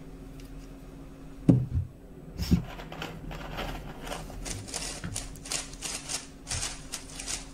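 A 3x3 speedcube being turned very fast in a speedsolve: a dense, irregular clatter of quick plastic clicks that starts about two and a half seconds in, a little locky. It is preceded by two dull thumps, the second as the stack timer starts.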